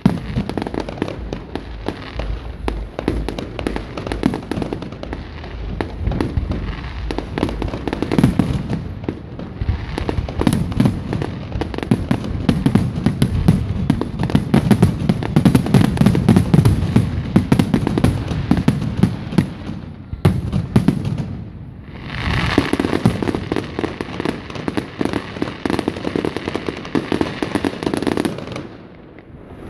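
Aerial fireworks shells bursting in a rapid barrage of overlapping bangs, at their thickest in the middle, with the bangs stopping shortly before the end.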